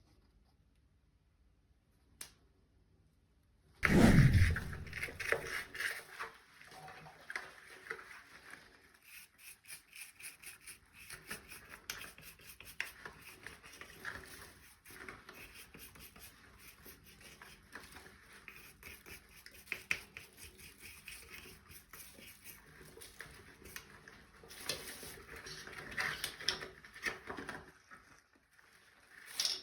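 Close-up cleaning sounds on a coffee maker. It is nearly quiet with one faint click at first, then a heavy knock about four seconds in, then a long stretch of fast, small scratching and clicking, like scrubbing and handling parts.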